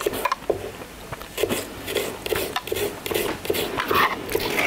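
Irregular small taps and clicks of cookware and utensils being handled at a stovetop around nonstick frying pans.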